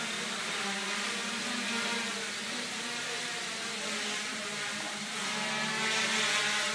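Homemade quadcopter's four E-max 2215 brushless motors driving 8x4.5 propellers in flight: a steady buzzing whine made of several tones that waver slightly, growing a little louder and hissier near the end.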